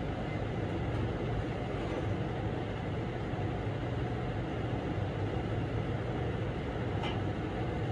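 Steady low drone with a hum, like a machine or fan running, and one faint click about seven seconds in.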